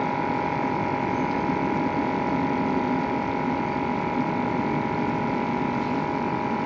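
Steady machine hum with a constant high whine above it, unchanging throughout.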